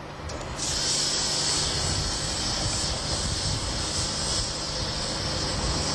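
FS D 445 diesel locomotive's engine running with a steady low rumble; a steady high hiss joins about half a second in.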